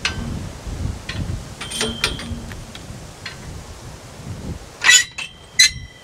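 A string of sharp clinks and taps of hard objects, several ringing briefly at a clear pitch, the three loudest near the end, over a low rumble.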